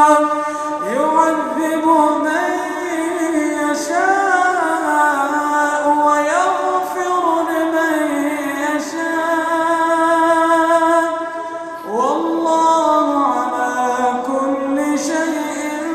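A man reciting the Quran in slow melodic tajwid chant, holding long ornamented notes that slide up and down. The voice swoops upward into a new phrase about a second in and again about twelve seconds in.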